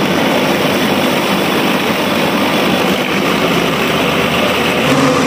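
Electric countertop blender motor running at full speed, blending cut mango with milk and sugar into juice: a loud, steady whir. Its tone shifts slightly about five seconds in.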